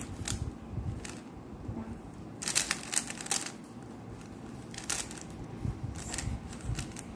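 A 3x3 Rubik's cube being turned by hand: irregular plastic clicks and clacks as its layers snap round, the loudest a few seconds in.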